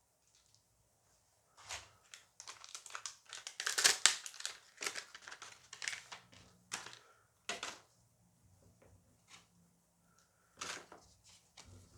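Crinkling and tearing of a Dice Masters booster pack wrapper being torn open and handled, loudest about four seconds in, with a shorter burst of crinkling near the end.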